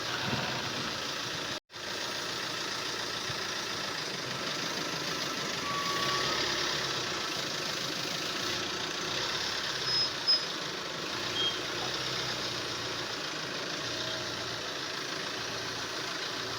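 Vehicle engine running steadily, with a few short high beeps about ten seconds in.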